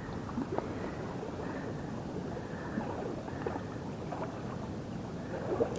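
Steady rushing of water pouring through a dam spillway, with a few faint clicks as hands handle a fish against a measuring tape.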